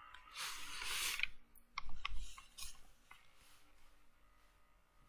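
A short rustling noise, then a few sharp separate computer mouse clicks.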